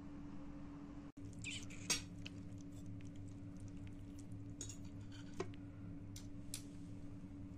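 A metal fork clinking and scraping against a plate as it pulls at a stuffed roast chicken: a handful of sharp clinks over a steady low hum.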